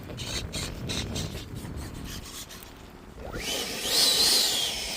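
Rubbing and buffeting noise, then about three seconds in an electric ducted-fan jet spools up with a steeply rising whine that settles into a loud, wavering high whine at takeoff power.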